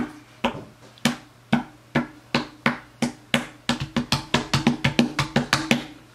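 A toddler slapping his palms on the top of a wooden TV stand, making hollow knocks, first about two a second and then faster, about five a second, before stopping near the end.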